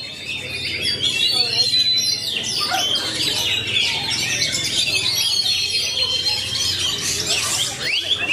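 Oriental magpie-robin singing a long, unbroken song of rapid, varied chirps, trills and short clear whistles.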